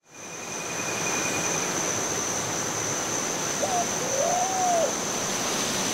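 A steady rushing background noise that fades in at the start, with a thin high whistling tone throughout. About two-thirds through, a brief call sounds, then a longer one that rises, holds and falls.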